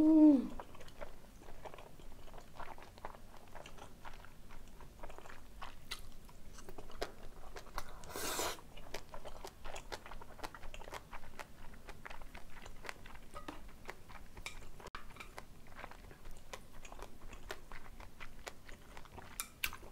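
Close-miked chewing of a mouthful of jajangmyeon with glass noodles, pork and green chili: soft wet mouth clicks and squelches. There is a short hummed "mm" at the start and a brief breathy rush about eight seconds in.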